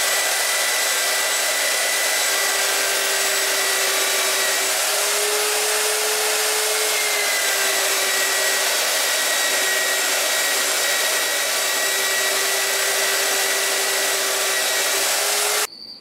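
TruCut magnetic drill running under load as it drills into 1-inch steel plate: a steady motor whine over dense grinding noise. The pitch lifts slightly for a couple of seconds around the middle, then settles back. It cuts off suddenly just before the end.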